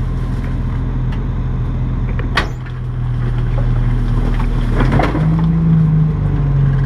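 Rear-loading garbage truck's engine running steadily, with one sharp knock about two seconds in and a brief crackling clatter near five seconds as the engine note steps up.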